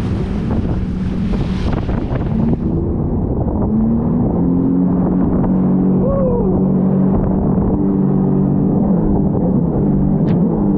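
Sea-Doo jet ski engine running under way, its note shifting up and down in steps as the throttle changes. A rush of wind noise on the microphone drops away about two and a half seconds in.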